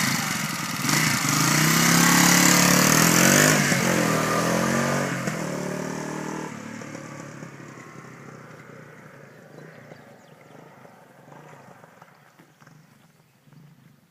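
Yamaha XT250 motorcycle's single-cylinder four-stroke engine running loud. Its note drops in pitch about four seconds in, and the sound then fades steadily away, as the bike moves off into the distance.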